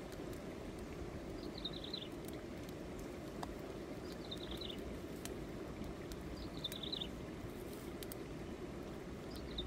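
A bird repeating a short, high, falling call four times, about every two and a half seconds, over a steady low outdoor rush with a few faint clicks.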